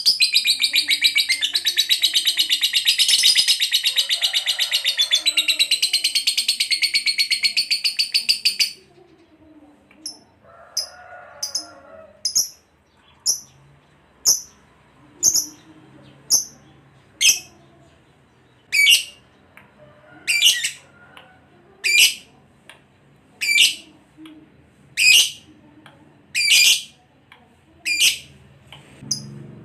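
Lovebird's long, rapid, shrill chattering trill (the 'ngekek' song), which breaks off about nine seconds in; after that come single sharp chirps about once a second.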